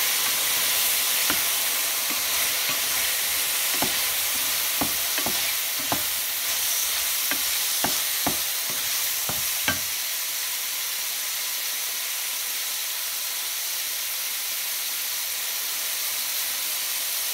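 Button mushrooms sizzling in olive oil and light soy sauce in a stainless-steel frying pan. A wooden spoon clicks and scrapes against the pan as they are stirred through roughly the first ten seconds, after which the sizzle goes on alone.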